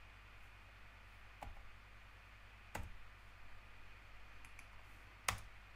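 Three separate sharp clicks from a computer keyboard and mouse as a fraction is typed into an equation editor. They fall about a second and a half, three seconds and five seconds in, the last the loudest. A faint steady low hum sits underneath.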